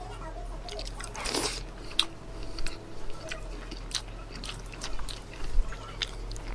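A crisp fried samosa being broken open by hand, then bitten into and chewed, with a string of sharp crunches from the pastry crust.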